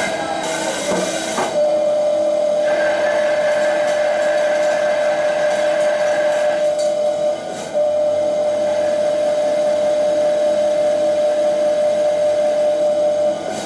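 CNC machine cutting metal: a steady whining tone sets in after about a second and a half and holds, dipping briefly a little past halfway, over a continuous hiss.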